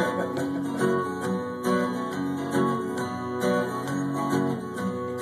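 Acoustic guitar strumming chords in a steady rhythm, with an accented stroke a little under once a second, and no singing.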